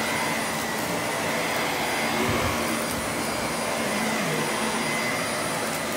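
Vacuum cleaner running steadily, a constant motor whine over the rush of air.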